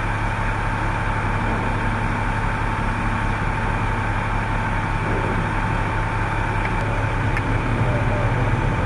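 Vehicle engine idling, a steady low drone with a thin constant whine above it, growing slightly louder near the end.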